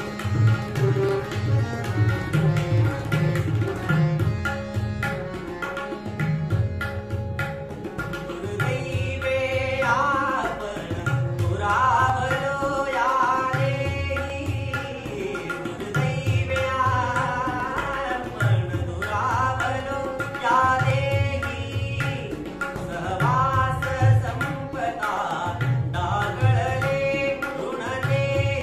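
Male voice singing in Indian semi-classical style, accompanied by harmonium and tabla. Tabla strokes and the harmonium's sustained notes run throughout, and the voice comes to the fore about nine seconds in with long ornamented phrases.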